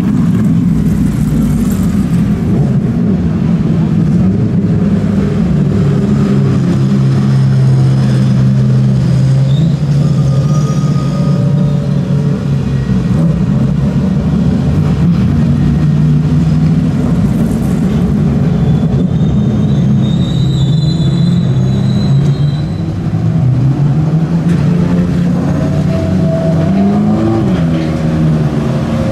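GT race car engines running at low revs as the cars move slowly past at pit-lane speed, with a brief rising rev near the end.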